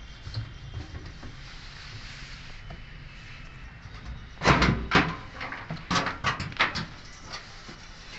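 A heavy knock about four and a half seconds in, then a quick run of lighter knocks and clicks over the next two seconds.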